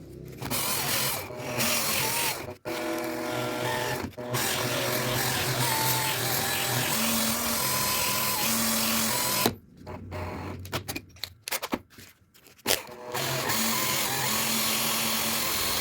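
A small power tool or electric motor running in several stretches, stopping abruptly between them, with a quieter spell of clicks and handling knocks in the middle.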